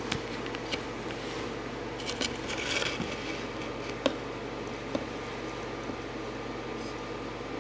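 Steady low room hum with handling noise: a few light clicks, a brief scraping rustle about two to three seconds in, and the sharpest click about four seconds in.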